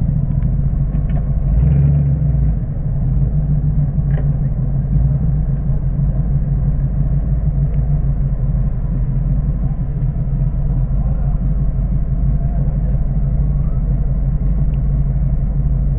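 Ford Maverick's engine idling with a steady, deep rumble.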